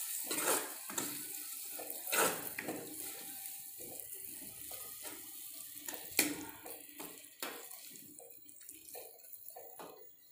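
Metal spoon stirring a wet, watered-down radish-and-tomato mixture in a kadai: irregular squelching and sloshing with spoon scrapes against the pan, busiest in the first couple of seconds and thinning out toward the end.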